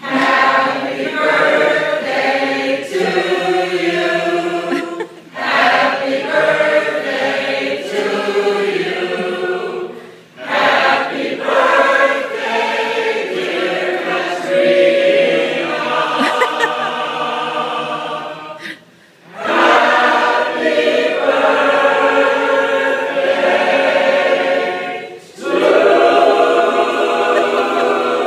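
Mixed choir of men and women singing together unaccompanied, in long sustained phrases broken by a few short pauses for breath.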